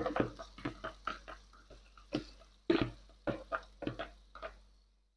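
Spoon tapping and scraping inside a plastic bowl as thick blended pepper is emptied into a pot, with wet plops: a run of irregular sharp taps that stops suddenly shortly before the end.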